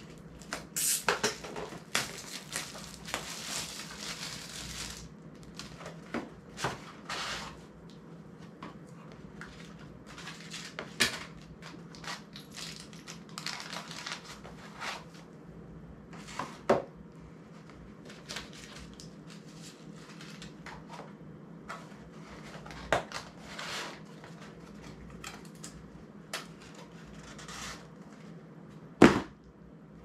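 Small cardboard boxes and camera accessory parts being handled and unpacked on a table: irregular rustling, scraping and sharp clicks, with one loud knock near the end.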